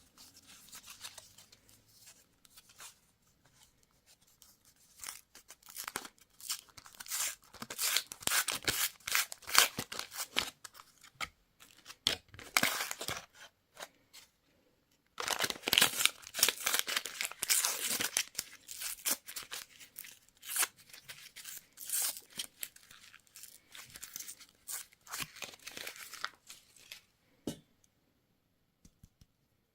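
Candy wrappers being crinkled and torn open by hand, in irregular crackling bursts with a brief pause about halfway through.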